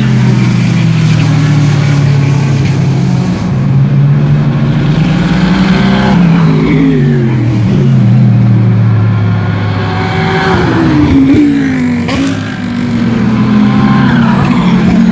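GT3 race cars at full throttle going past one after another, each engine note dropping in pitch as it passes, with rising revs and upshifts in between.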